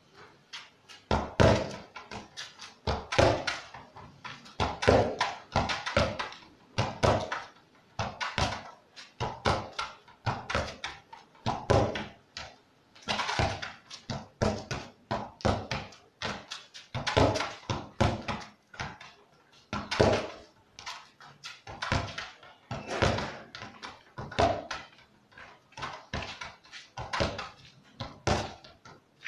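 Football passed repeatedly against a wall with the instep: sharp thuds of foot striking ball and ball striking wall, coming in quick runs every second or two as the ball is played back and forth.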